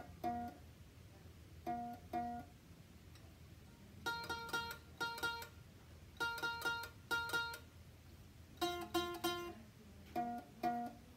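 Homemade bedpan ukulele plucked in short groups of quick single notes, imitating the alarm beeps of a large hospital patient monitor: two-note pairs at the start and near the end, with faster runs of higher notes in between.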